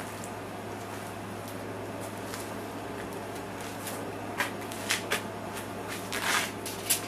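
Steady low hum, then from about four seconds in a few sharp clicks and a brief rustle as small metal parts and hand tools are handled.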